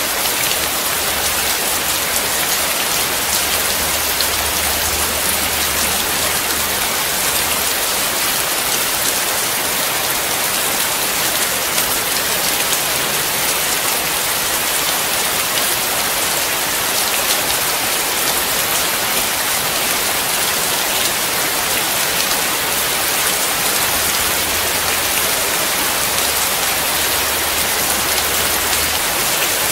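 Steady rain falling on a wet hard surface: a dense, even hiss of drops that never lets up. A low rumble sits beneath it for the first several seconds and again near the end.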